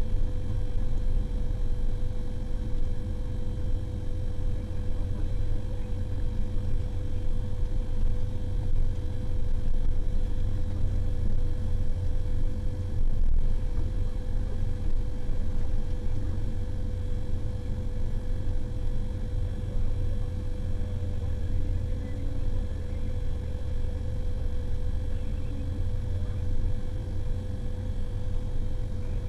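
Motor grader's diesel engine running steadily under load while grading: a constant low rumble with a steady mid-pitched whine.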